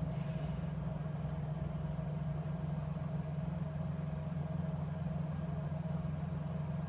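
Steady low machine hum with a faint even tone above it, unchanging throughout, and one faint tick about three seconds in.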